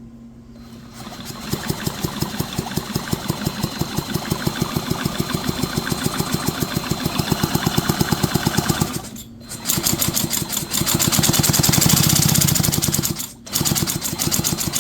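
McCulloch 5-10E chainsaw engine being spun over by a motor without firing, a fast rhythmic chugging in three runs with short breaks, the middle run loudest. The engine is turning over to pump flushing fluid out of the crankcase.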